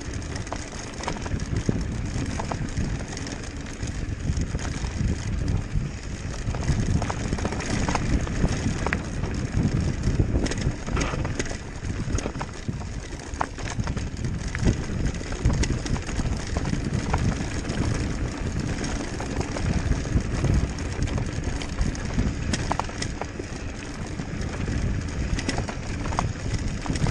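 Mountain bike rolling fast down a rocky dirt trail: tyres crunching over loose stones and the bike rattling with scattered small knocks, under a steady rumble of wind on the camera's microphone.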